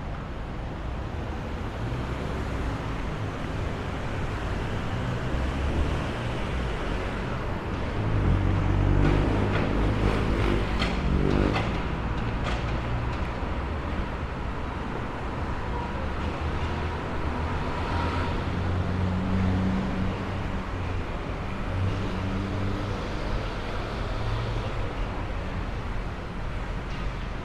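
City street traffic: motor vehicles running and passing, with one passing close and loudest around nine to twelve seconds in.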